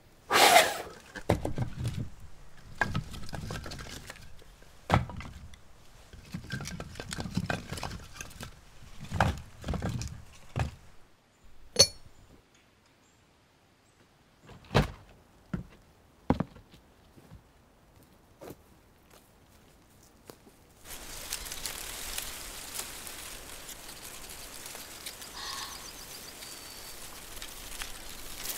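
A run of knocks, thumps and clinks from objects being handled. One sharp, ringing clink comes about twelve seconds in, then a few isolated clicks. From about two-thirds of the way through, a steady hiss of wind through reeds.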